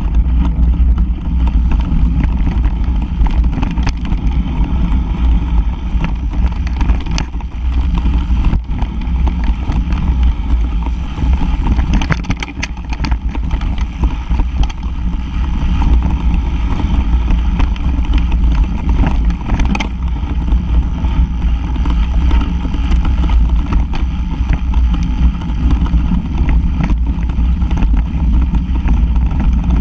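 Mountain bike riding fast over a rough dirt forest trail, heard through a bike-mounted action camera: a loud, steady deep rumble of wind buffeting and vibration, with scattered sharp knocks and rattles as the bike hits bumps.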